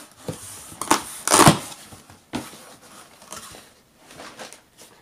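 Packing tape ripped off a long cardboard shipping box and the cardboard flaps pulled open. It comes as a few short bursts of tearing and scraping, the loudest about a second and a half in, then lighter rustling of cardboard.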